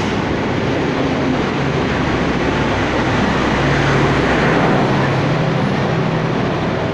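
Passenger train running through a station without stopping, its carriages rushing past close by with a steady rolling rumble. About halfway through, the louvered power car at the tail passes with a low engine hum, the noise peaks, then begins to ease as the train goes.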